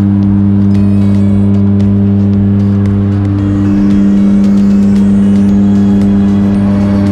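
Jump plane's engines and propellers droning steadily inside the cabin during the climb to altitude: a loud, even hum with a low steady tone and its overtones.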